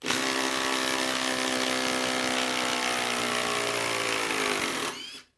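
Makita 18V brushless impact driver hammering steadily as it backs a long lag screw out of a wood stump. Its pitch sags slightly just before it stops, near the end.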